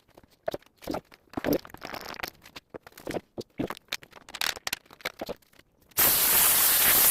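Irregular scraping and rustling from handling, then about six seconds in a loud, steady hiss that lasts over a second.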